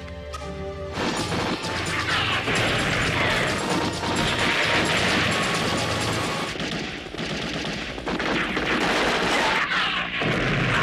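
War-film battle sound: rapid, dense gunfire with crashes and blasts, after a second of soft background music.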